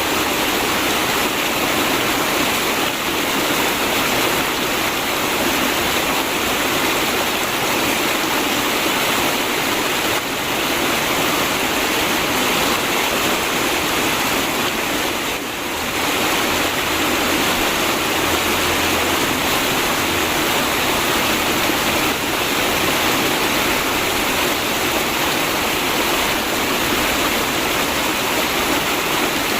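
River water flowing steadily past the bank, a continuous gurgling rush with a brief slight dip in level about halfway through.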